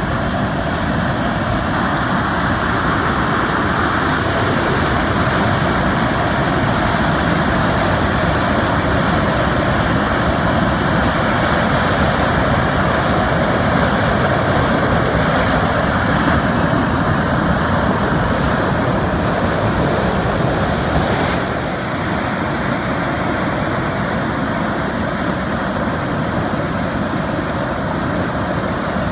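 Loud, steady rush of falling water from waterfall rapids, a continuous roar with no let-up.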